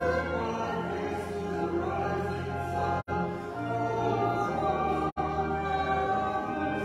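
Slow choral music with long held notes. The sound cuts out completely for an instant twice, about three and five seconds in.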